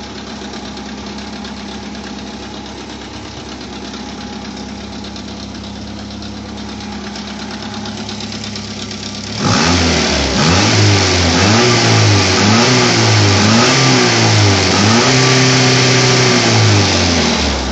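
Opel Rekord 2.2i petrol engine idling steadily with a rattle that the owner puts down to a worn, clattering timing chain. About nine seconds in it is revved up and down repeatedly, about six short blips, each rising and falling, much louder than the idle.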